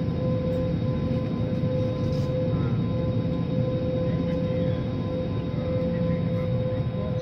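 Airliner cabin noise while taxiing: the jet engines at idle give a steady low rumble with a steady high whine over it.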